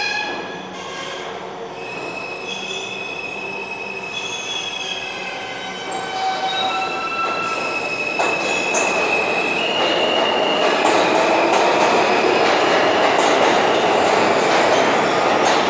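New York City Subway R160 train pulling out of a station: its traction motor whine steps up through several pitches as it gets under way. From about eight seconds in, a louder rush and rumble of wheels on rail builds as the cars speed past.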